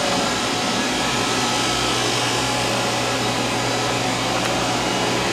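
Fadal VMC 2016L CNC vertical machining centre running, a steady motor whir with a constant low hum.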